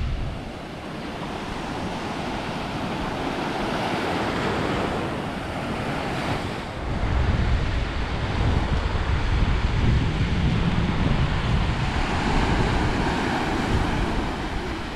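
Small waves breaking and washing on a sandy beach, with wind buffeting the microphone; the wind rumble gets heavier about halfway through.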